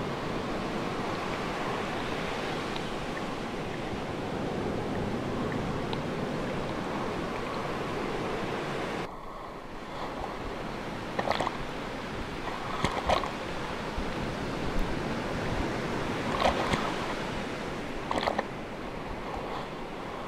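Ocean surf, a steady rush of waves. About nine seconds in it cuts to a quieter stretch of surf with a few brief, sharp sounds over it.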